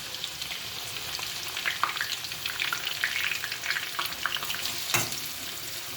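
Sliced onions sizzling and crackling in hot butter, ghee and oil in a frying pan, a steady hiss dotted with small pops, with a single sharp knock about five seconds in.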